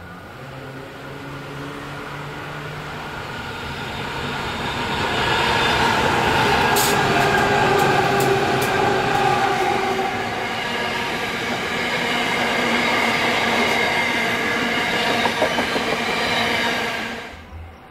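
Diesel-hauled freight train passing close at speed. The locomotive's engine drone and wheel rumble build to their loudest about six seconds in. The wagons then keep rumbling past with a few sharp clicks from the wheels, until the sound cuts off suddenly near the end.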